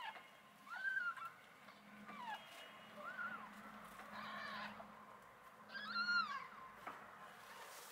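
Newborn kittens mewing: about six short, high, arching cries, roughly one every second, the loudest about a second in and about six seconds in.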